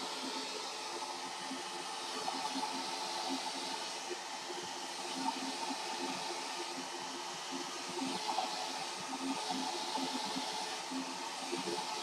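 Hand-held hair dryer running steadily: a constant rush of blown air with a low motor hum beneath it, wavering slightly as it is moved around the head.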